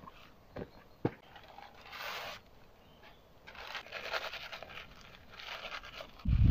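Two light clicks about half a second and a second in, then bursts of rustling and crumpling as paper is worked in the hands. A sudden loud low rumble comes in near the end.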